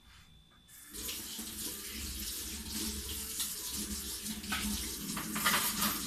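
Kitchen tap turned on about a second in, water running steadily into a stainless steel sink and splashing over a mesh strainer being rinsed under it, louder for a moment near the end.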